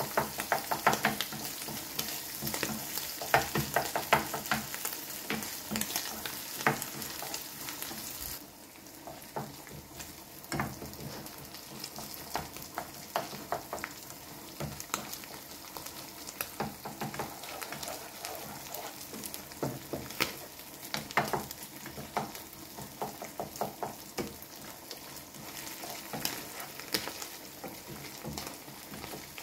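Onion, tuna and soft cheese sizzling in a nonstick frying pan while a spatula stirs and mashes them, with frequent short scrapes and taps against the pan. The sizzle turns quieter about eight seconds in.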